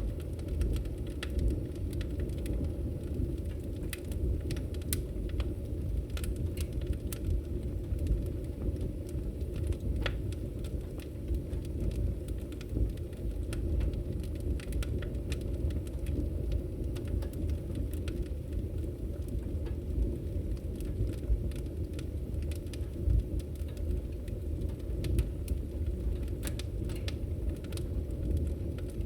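Fire crackling in a fireplace: frequent sharp pops and snaps scattered over a steady low rumble.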